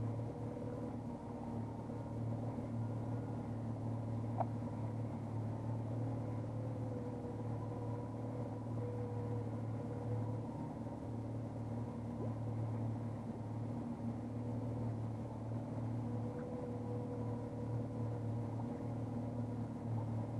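Fishing boat's motor running steadily at trolling speed, an even drone, with one brief click about four seconds in.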